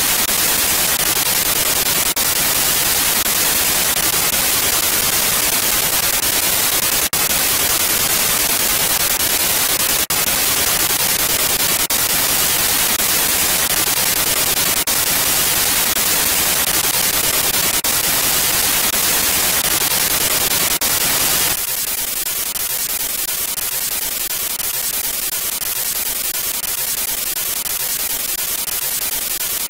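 Phone ghost-box app sweeping through FM frequencies, giving a steady hiss of radio static with occasional faint clicks. About three-quarters of the way through, the static turns thinner and a little quieter.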